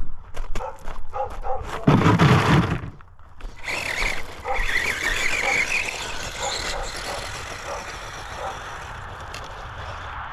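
Redcat Piranha 1/10 scale RC truggy being driven. Scattered clicks and rattles, then a loud crunching thump about two seconds in, then a wavering whine from its electric motor that slowly fades.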